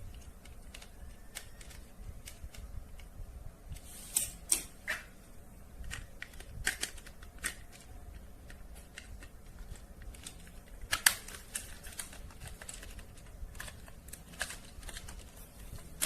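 Irregular light clicks and crinkles of plastic toy packaging being handled and opened, with a few sharper snaps, the loudest about eleven seconds in.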